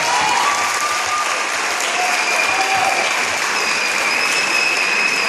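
Audience applause, a dense steady clapping, with long high-pitched cheers held over it from about two seconds in.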